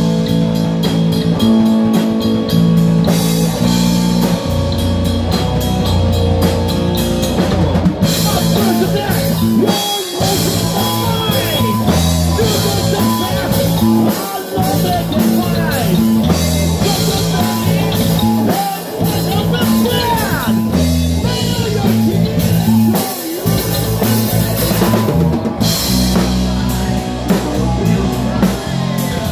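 Live heavy metal band playing: electric guitar, bass guitar and drum kit with a singer's voice, with fast, dense drumming near the start and again near the end.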